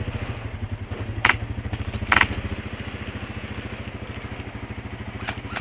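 ATV engine running steadily with a fast, even pulse, broken by two short rattling bursts of airsoft gunfire about a second in and again a second later.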